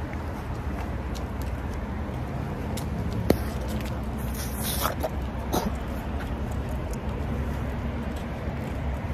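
Black bubble gum being blown and popped: a sharp snap about three seconds in, then a few softer pops and crackles around five seconds. Underneath runs a steady low rumble of street noise.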